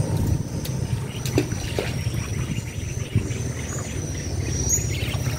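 Outdoor field ambience: a steady high insect drone over a constant low rumble, with a few faint clicks.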